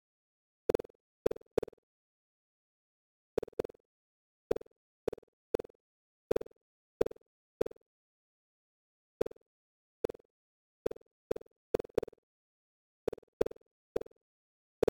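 Synthetic bounce sounds, each a short pitched pop that dies away at once, one per collision of the animated boxes in a surround-sound test. There are about twenty of them, coming at irregular intervals in clusters, with stretches of silence in between.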